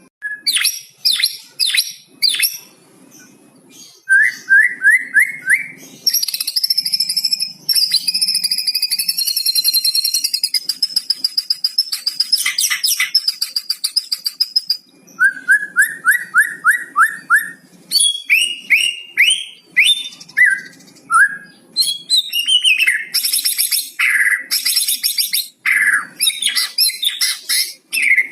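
White-rumped shama (murai batu) singing a long, varied song full of mimicked phrases learned from the cucak cungkok: quick runs of short rising notes, a long held whistling phrase, and fast chips and trills.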